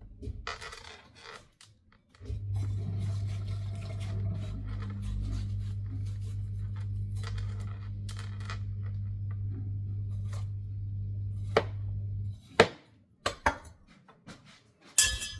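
Kitchen knife slicing a watermelon on a cutting board: soft scraping cuts, then several sharp knocks of the blade on the board near the end. A steady low electrical hum runs under it and stops suddenly about twelve seconds in.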